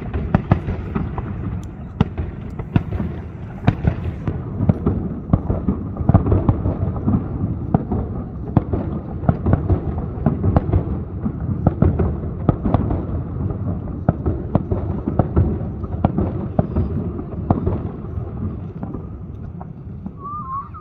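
Fireworks display: a rapid, continuous series of aerial shell bursts, sharp bangs several times a second over a rolling low rumble, thinning out over the last few seconds.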